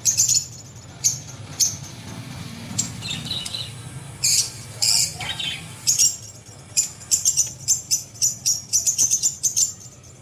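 Rubber squeaky animal toy being squeezed: short, high-pitched squeaks, a few scattered at first, then coming quickly, about three a second, from about seven seconds in, over a low steady hum.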